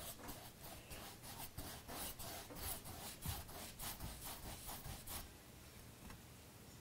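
Paintbrush scrubbing paint onto canvas in quick back-and-forth strokes, about four a second, stopping about five seconds in.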